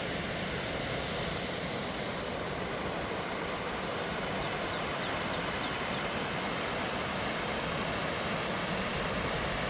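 Waterfall rushing steadily, running high with snowmelt.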